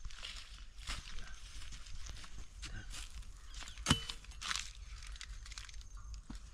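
Leaves and twigs rustling and crackling as a thin branch is pulled from a bush and stripped by hand, with one sharper snap about four seconds in.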